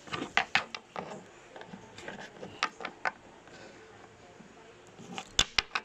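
Small plastic toy figures being handled and set down on a tabletop: scattered light clicks and taps, a quick cluster in the first second and two sharper knocks near the end.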